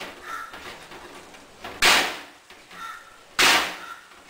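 A ball of raw ox-eye herring paste slapped down hard onto a ceramic plate twice, about a second and a half apart, each slap followed by a softer sound about a second later. The slapping kneads the scraped fish flesh until it turns soft like clay.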